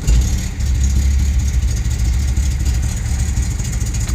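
Volkswagen Jetta engine idling steadily just after being restarted. It has a misfire and an exhaust leak that make the idle rough.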